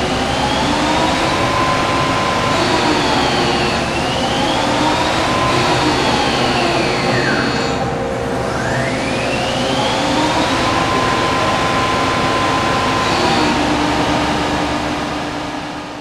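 Okuma Crown L1420 CNC turning center running: a motor whine rises, holds and falls in pitch several times over steady machine noise. The sound fades out near the end.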